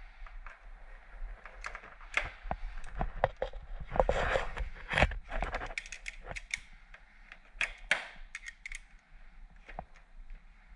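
Irregular sharp clicks and light metallic taps of hand tools and lever parts being handled during a motorcycle lever swap, with a denser, louder clatter about four to five seconds in.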